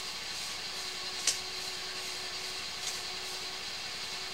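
Steady machine hum and hiss with a faint constant tone, broken by two light clicks.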